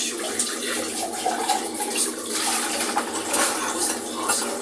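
Kitchen tap running into a sink while dishes are washed and rinsed by hand, with a few light knocks of crockery.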